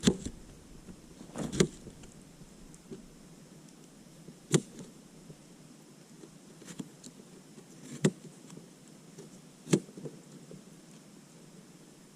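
Small cleaver chopping potatoes on a hard surface: a handful of sharp, separate knocks a second or a few seconds apart, with fainter ticks between.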